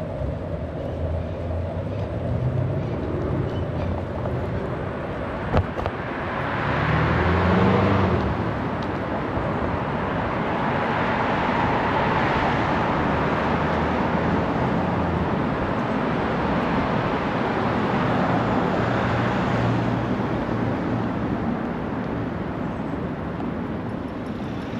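City road traffic heard from a moving bicycle: a steady run of noise with low engine hum, swelling three times as vehicles pass, the loudest swell about a third of the way in. One sharp click comes a little before that loudest swell.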